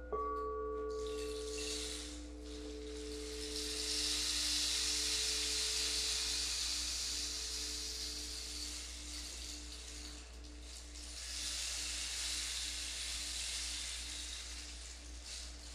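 Singing bowl struck as the sound begins, its tone ringing and slowly fading over a steady, pulsing hum. Under it runs a soft hissing wash that swells from about three seconds in, dips, then rises again.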